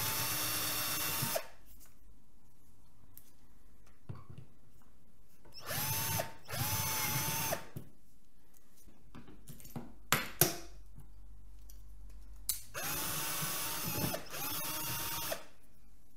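Power drill running in short spurts, each one spinning up to a steady whine and stopping. There are about five runs of one to one and a half seconds each, in three groups, backing out the fasteners of a Harley Tour-Pak luggage box. A few sharp clicks come about ten seconds in.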